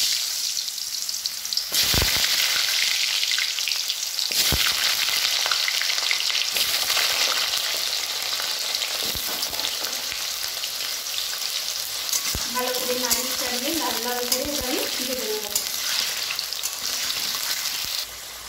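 Cubed potatoes frying in hot mustard oil in a metal wok (kadai): a loud, steady sizzle, with a couple of sharp knocks in the first few seconds.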